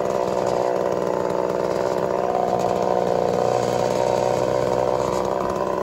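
Gas chainsaw's two-stroke engine running steadily at an even pitch.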